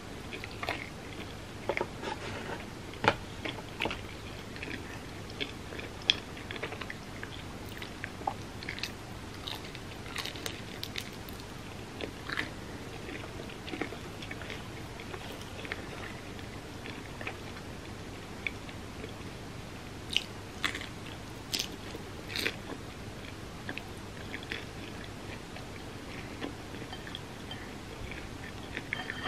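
A person chewing and biting food close to the microphone, with a steady run of small mouth clicks and a few sharper, louder clicks now and then.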